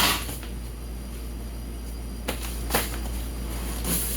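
Packing material being pulled out of a shipping box: a few short rustles and crinkles over a steady low hum.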